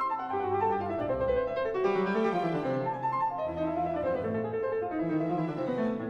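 Background instrumental music in a classical style, led by piano, with a stepping melody over bass notes.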